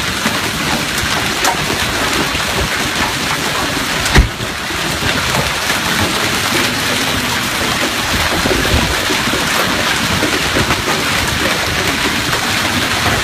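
Hailstones and heavy rain pelting down, a dense, steady clatter of many small impacts. One loud knock stands out about four seconds in.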